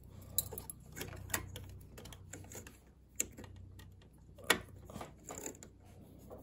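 Light, irregular clicks and taps of a metal locking forceps and small parts against a projector's fan and housing while a drive belt is worked over the squirrel-cage fan, with one sharper click about four and a half seconds in. A faint low hum sits underneath.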